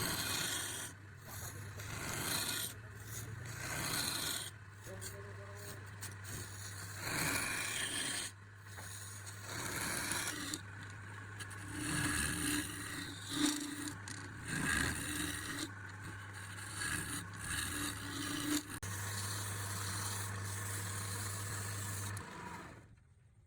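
Wood lathe motor running with a steady low hum while a tool rasps and scrapes against the spinning wood of a turned pot. The sound cuts off about a second before the end.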